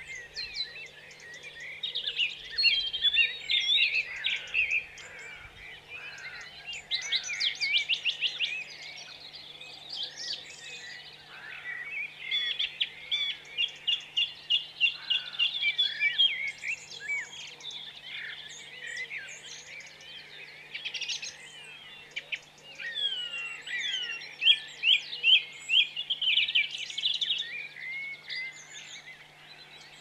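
Songbirds singing and chirping, several at once, with quick runs of repeated notes. A faint steady low hum lies underneath.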